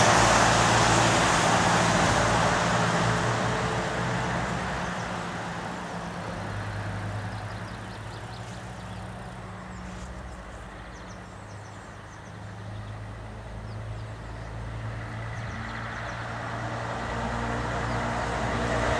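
Road traffic passing: a vehicle's tyre and engine noise, loud at first, fades away over the first several seconds, leaving a low engine hum. Then another vehicle, a lorry, approaches and grows louder near the end.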